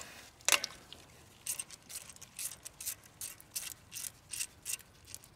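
Ratchet wrench with a 10 mm socket clicking while backing out a 10 mm bolt at the fuel filter. There is a single sharp click about half a second in, then an even run of clicks, about three to four a second.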